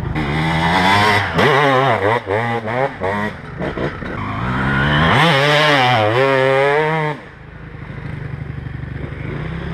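Dirt bike engine revving: a string of quick throttle blips rising and falling in pitch, then a longer rev that cuts off about seven seconds in, leaving a quieter sound.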